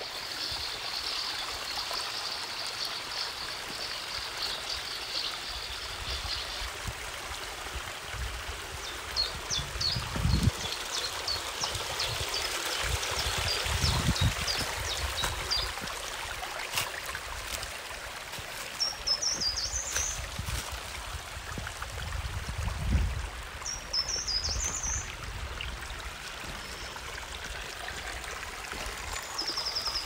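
Small waterfall and stream water running in a steady rush and trickle, with short high chirps coming and going over it.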